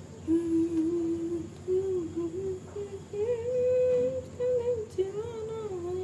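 A voice humming a slow tune, holding long steady notes that step up and down.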